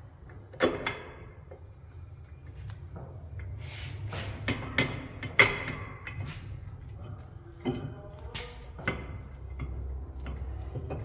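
A handful of sharp, irregular clinks and knocks of metal brake parts and hand tools being handled, over a low steady hum.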